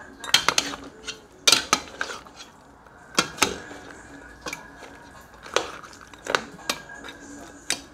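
Large metal spoon stirring a pot of browned meat, clanking and scraping against the sides of the aluminium pot. There are a dozen or so sharp, irregular knocks.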